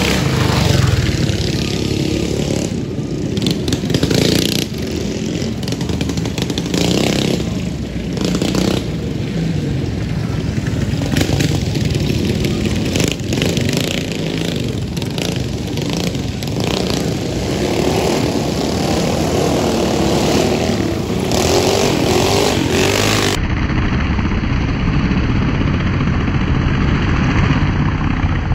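Mini bike engines running and revving as racing bikes ride past close by, over a continuous drone of other bikes' engines.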